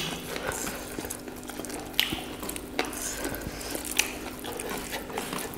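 Close-miked wet eating sounds: chewing, lip smacks and sticky mouth and finger noises, with a few sharp clicks scattered through.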